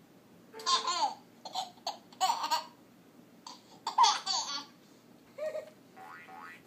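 A toddler laughing in several short, loud bursts of giggles, the loudest about four seconds in, followed near the end by fainter sounds.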